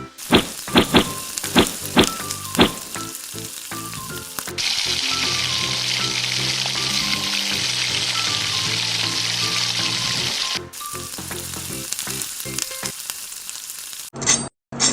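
Potato patties (aloo tikki) frying in hot oil, sizzling steadily for about six seconds in the middle. Before that come several sharp knocks in quick succession. Light background music plays throughout.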